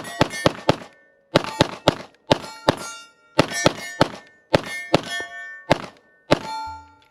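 Sig P320 Spectre Comp compensated pistol firing a rapid string of shots, mostly in quick pairs, each crack followed by the ringing clang of steel targets.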